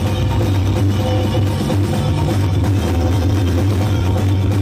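Music played at high volume through a towering Scorpion Audio sound-system stack of bass cabinets and horn speakers, with a deep, steady bass that dominates the sound.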